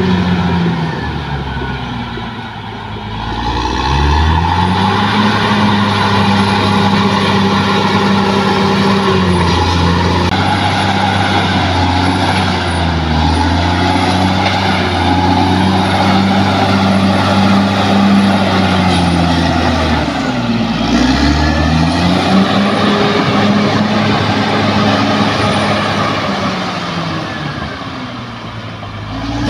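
Bulldozer's diesel engine working, its revs dropping briefly a few seconds in and again about two-thirds of the way through, each time picking back up. A faint high whine sits above it through the middle.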